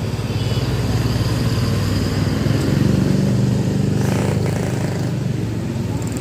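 Heavy diesel bus engine running close by with a steady low rumble that swells slightly about three seconds in, and a short hiss about four seconds in.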